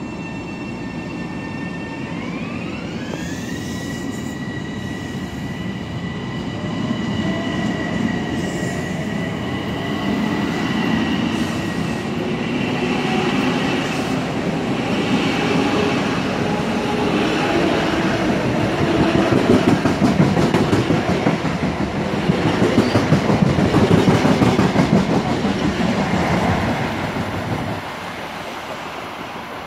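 Long Island Rail Road M7 electric multiple-unit train pulling away from a station: its high propulsion whine rises in pitch about two seconds in and then holds, over a growing rumble of wheels on rail. Wheels clicking in a steady rhythm over the rail joints build as the cars pass, loudest about 20 to 26 seconds in, and the sound drops off near the end as the train goes away.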